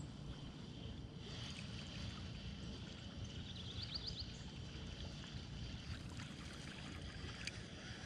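Faint outdoor background: a low, unsteady rumble, with a quick run of high chirps about four seconds in.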